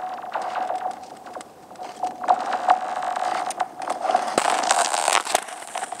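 New black lake ice, 45 mm thick, singing as skaters cross it: sharp ringing pings and crackles over a steady tone. The pings grow denser and louder from about four seconds in.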